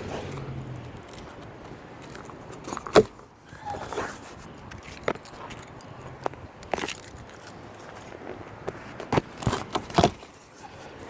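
Packaging being cut and pulled open by hand: irregular crackles, rustles and sharp knocks, the loudest about three seconds in and a cluster near the end.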